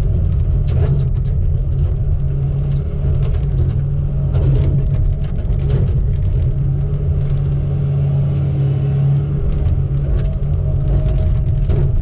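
Heavy logging machine's diesel engine running steadily, a low drone with a few short knocks and clanks over it.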